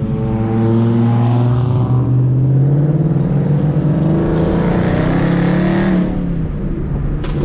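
Car engine accelerating, its pitch climbing as it revs, with a rush of noise building about five seconds in.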